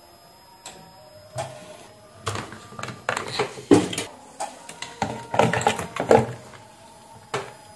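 Clicks and knocks of multimeter test leads and probes being handled and set down on a hard bench top, with test-lead plugs pushed into sockets.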